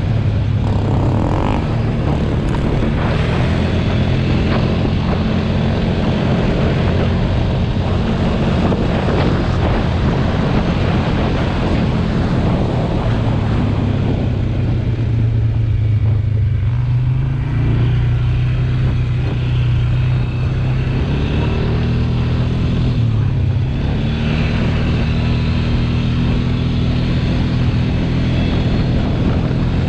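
ATV engine running steadily while riding, its pitch dipping and rising a few times with the throttle, mostly in the second half.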